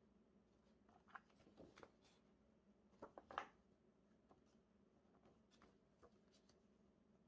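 Faint rustling and light taps of hands handling the glossy paper pages of a photobook. A few scattered, with the loudest cluster a little past three seconds in.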